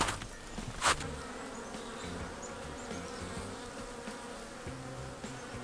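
Honeybees buzzing in numbers around the hive entrance, a steady wavering hum of many wings, with one brief knock about a second in. The bees are flying on a warm early-spring day, which the beekeeper takes as a good sign of spring.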